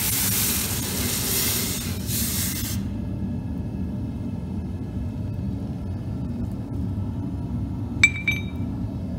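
A hot aluminium ingot plunged into a bucket of water hisses as it quenches, for nearly three seconds, over a steady low rumble from the propane furnace burner. About eight seconds in, the bar is dropped on the concrete floor with two quick ringing clinks.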